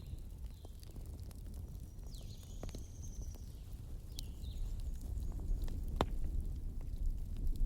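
Wood fire crackling, with scattered sharp pops over a low rumble and one louder pop about six seconds in. Small birds chirp several times in short falling notes.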